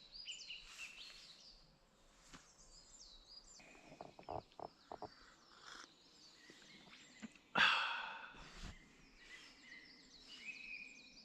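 Small birds chirping and calling in woodland, with a few sharp clicks or knocks about four to five seconds in. About seven and a half seconds in, a sudden louder rush of noise fades away over about a second.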